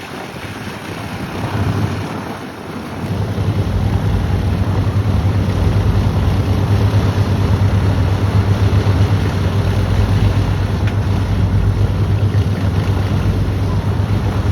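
Wind buffeting the microphone with a steady low drone, louder from about three seconds in.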